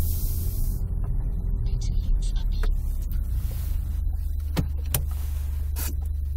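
Steady low engine and road rumble inside a slowly moving small car's cabin, with a few sharp clicks or knocks in the second half.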